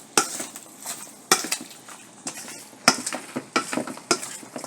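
A spoon stirring food in a cooking pot, scraping and knocking against the pot in a string of uneven clicks.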